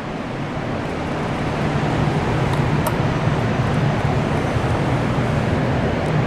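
Loud, steady mechanical rushing noise with a low hum underneath, swelling slightly over the first two seconds, with a couple of faint clicks about three seconds in.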